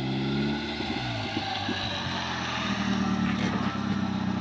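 Hyundai i10 hatchback's engine running as the car drives over dirt ground. Its pitch dips about a second in, then holds steady.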